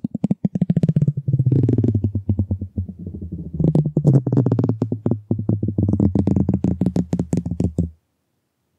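Talkbox feedback: a microphone held at the talkbox's plastic tube feeds back through it, giving a low, fast-stuttering drone of about eight pulses a second whose pitch shifts as the tube is handled. It cuts off abruptly near the end.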